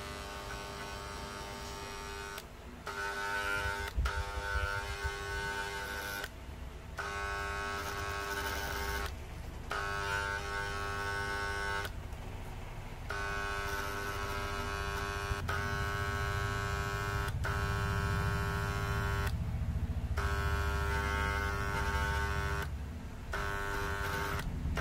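Transformer soldering gun buzzing with a steady mains hum, switched on and off again and again in stretches of one to three seconds with short breaks, while soldering wire onto stainless steel.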